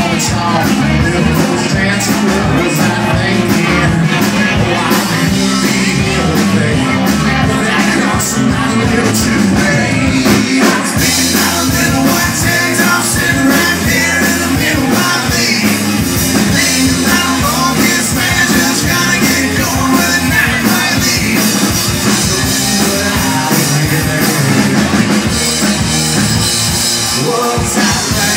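Live rock band playing loudly: a lead singer on a microphone over electric guitars, bass guitar and a drum kit.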